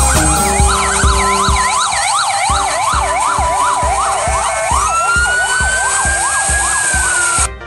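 Several ambulance sirens sounding together in a convoy, their fast up-and-down yelps overlapping along with a steady tone. About five seconds in, one siren glides up into a long, slow wail. The sound drops out briefly just before the end.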